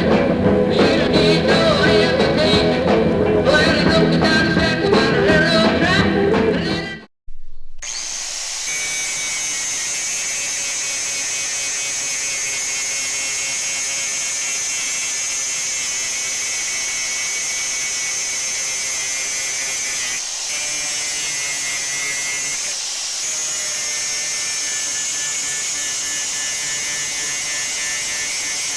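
Rock music for about the first seven seconds, then, after a brief gap, an electric grinder runs with a steady high-pitched whine, dipping briefly twice. It is grinding down the peened-on end of a vise's ball-end part.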